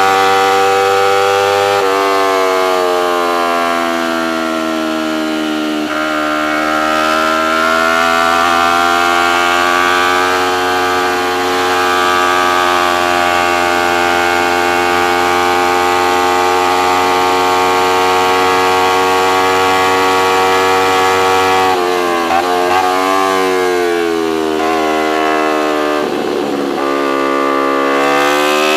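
Racing motorcycle engine running at high revs on track, heard from an onboard camera with wind rush. The engine note dips about two seconds in, climbs and holds steady through the middle, then wavers and drops in a series of quick changes in the last quarter before rising again.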